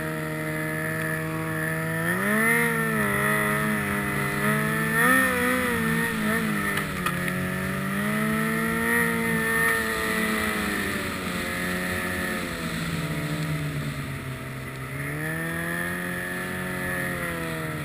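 Snowmobile engine running under a rider on a trail, its pitch rising and falling with the throttle: two quick revs in the first few seconds, a long swell, then easing off and building again near the end.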